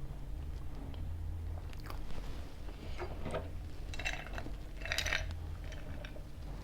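Close-miked chewing and biting of pizza, with crisp crunchy bursts about three, four and five seconds in, over a steady low hum.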